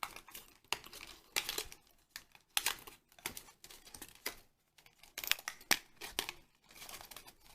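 Plastic blind-pack packaging crinkling and clicking in the hands in short, irregular bursts as it is handled and worked at to be opened.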